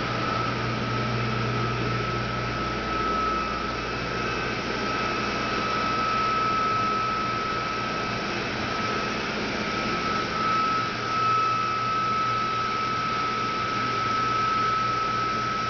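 Water-damage drying equipment (air movers and blowers) running steadily: a constant rush of air with a steady high whine and a low hum.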